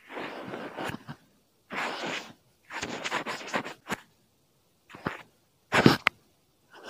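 Short bursts of rubbing and scratching noise, foley sound effects made to imitate hair being washed for ASMR, with brief silences between them and a sharp click about six seconds in.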